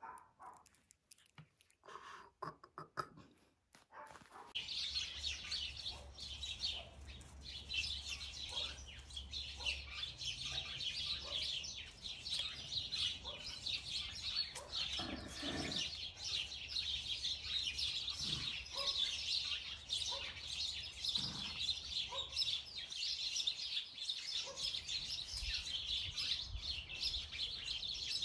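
Faint clicks of a puppy mouthing a finger, then from about four and a half seconds in a dense, continuous chorus of small birds chirping.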